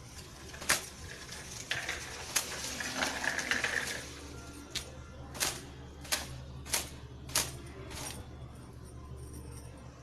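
Wet hair being dried with a towel: about eight sharp slaps as the towel snaps against the hair, with a stretch of rough rubbing in the first half.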